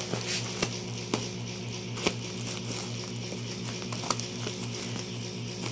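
Plastic snack packaging being handled, giving a few sharp crinkles and clicks, the loudest about two and four seconds in, over a steady electrical hum.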